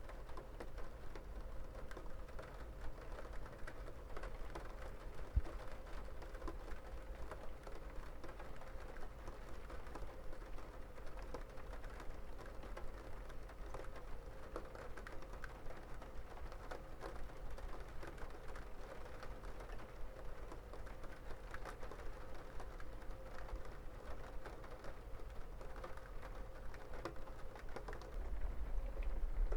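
Steady rain falling, a dense patter of small drops ticking on a hard surface. A low rumble swells near the end.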